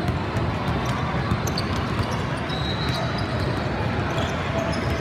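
Basketball bouncing on a gym court over the steady noise of a game in a hall, with a few short high squeaks and a brief high tone a little past the middle.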